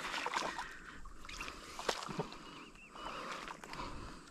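Light sloshing and splashing of water with scattered small knocks and clicks, irregular rather than rhythmic, while a freshly shot fish is brought in.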